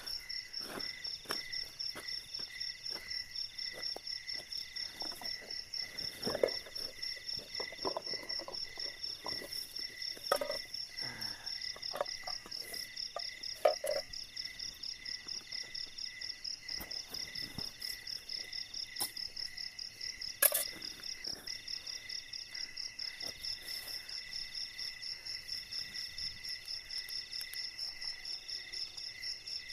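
Night insects trilling steadily, several high, pulsing trills at different pitches overlapping in a continuous chorus. Scattered knocks and rustles of camping gear being handled in the first half, and one sharp click about two-thirds of the way in.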